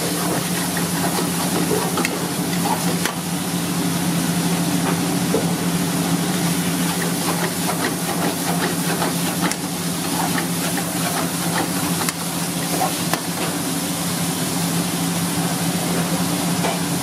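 Steady hiss of a gas burner and chicken frying in a wok, over a constant low hum. A steel ladle scrapes and clinks against the pan now and then as the meat is stirred.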